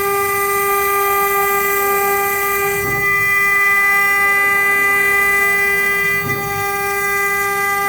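Wood CNC router's spindle running with a steady high whine as the machine begins its programmed job.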